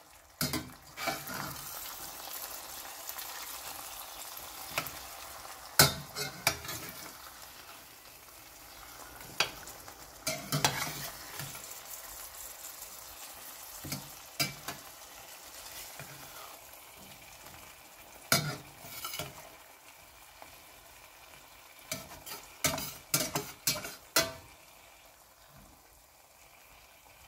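Eggs frying in olive oil in a stainless-steel pan, sizzling steadily, while a slotted spatula scrapes and knocks against the pan in scattered clusters as the eggs are turned over. The sizzle fades near the end.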